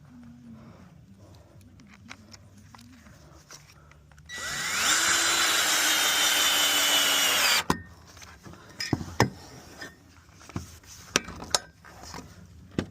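Cordless drill running for about three seconds, its motor pitch rising as it spins up, driving a bolt into the fence. A few scattered knocks and clicks follow.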